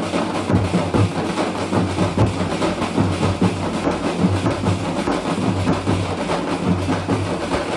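A padband ensemble of many large double-headed bass drums beaten with sticks, all playing together in a fast, dense, steady rhythm with a heavy low boom.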